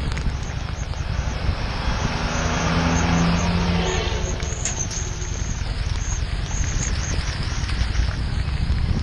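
Harley-Davidson Street 750's V-twin engine running at low speed, heard from on the bike through wind and rain noise on the microphone. A steady low tone sounds for about two seconds near the middle.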